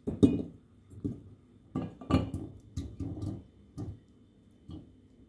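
Kiwi slices dropped one by one into a glass jar, each landing with a soft knock against the glass and the slices below. About nine irregular drops, the loudest near the start, thinning out toward the end.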